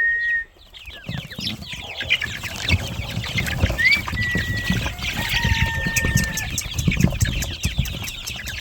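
A flock of backyard chickens clucking, with long drawn-out rooster calls a few seconds in, over a low rumble.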